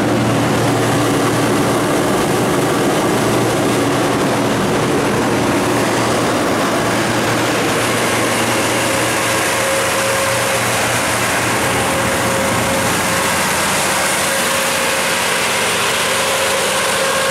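Kohler 125RZG generator set's GM 8.1L V8 natural gas engine running steadily at its governed 1800 rpm. The sound shifts slightly about halfway through.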